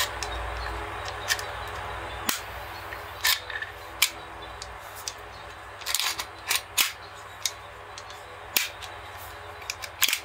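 Sharp metal clicks and clacks as a WE M1911A1 gas blowback airsoft pistol is reassembled by hand, about a dozen at irregular intervals.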